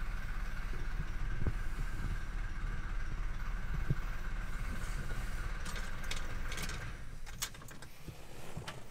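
1988 Mercedes-Benz 300GD's five-cylinder diesel idling steadily, heard from inside the cab. About seven seconds in the idle stops, and a few clicks and knocks follow.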